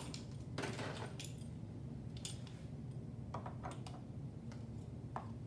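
Small manicure bottles and containers being set down and moved about on a tabletop: a scattering of short light knocks and clicks, about six in all, over a steady low hum.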